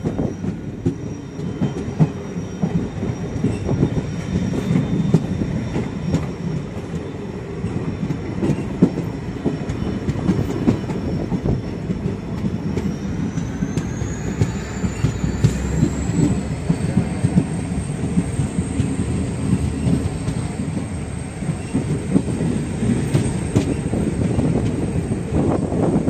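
A train running on the track, a steady low rumble with many rapid clicks of wheels passing over rail joints. A thin high whine rises about halfway through and then holds steady.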